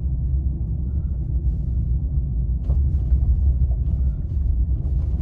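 Steady low rumble of a vehicle on the move, heard from inside the cabin: engine and road noise.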